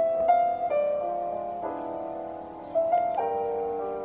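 Background piano music, slow and gentle, with single notes and chords struck every half second or so.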